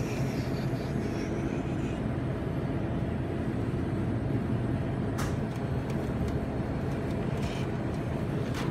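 Steady low hum of a store's refrigerated drinks cooler, with two sharp clicks in the second half as aluminium energy-drink cans are handled on the shelf.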